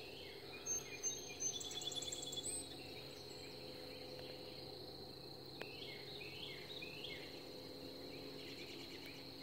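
Faint outdoor morning ambience: a steady high insect trill throughout, with birds calling over it. There are thin high calls and a brief trill in the first few seconds, then a string of short downward-slurred chirps in the second half.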